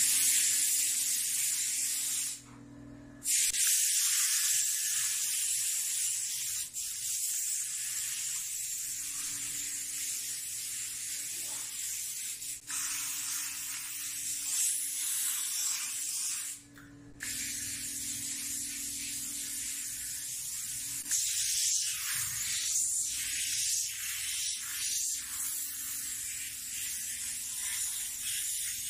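Small gravity-feed paint spray gun spraying paint onto a wall in a steady hiss, stopping briefly twice as the trigger is released.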